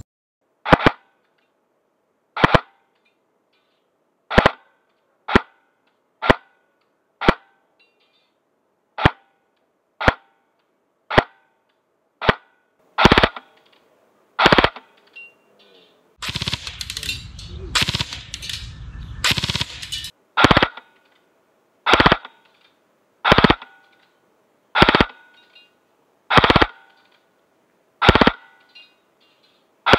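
Double Eagle M916A airsoft electric gun firing single shots, about one every second or two and around twenty in all. A rough noisy stretch of about four seconds comes in the middle.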